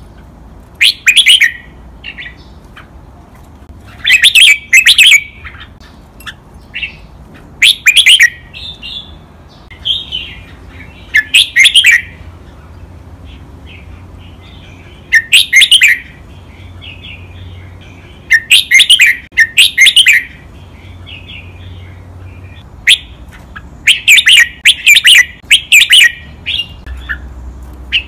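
Red-whiskered bulbul singing: short, loud, chirpy song phrases repeated every few seconds, some given twice in quick succession.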